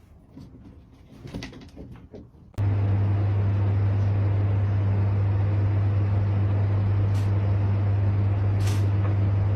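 Faint clicks and rustles, then, about two and a half seconds in, a loud steady low hum with a rushing noise starts suddenly, like a machine or vehicle running, with a few short hisses near the end.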